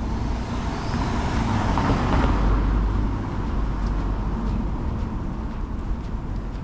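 A car passing on the street alongside, its noise swelling to a peak about two seconds in and then fading, over a steady low rumble of city traffic.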